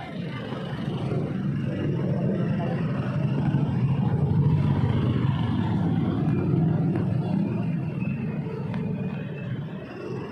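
Street traffic close by: engines of vehicles running in slow traffic, a steady rumble that grows louder in the middle and eases toward the end.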